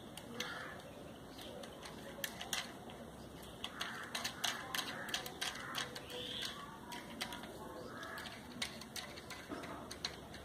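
Irregular small clicks and taps of metal and plastic handled close to the microphone as a grinding-stone bit is fitted into the collet of a mini rotary grinder, with its motor off.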